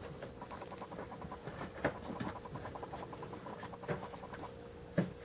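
Mother dog working over her newborn puppies with her mouth: a fast, even train of small wet clicks from licking and panting, with a few sharper knocks about two, four and five seconds in.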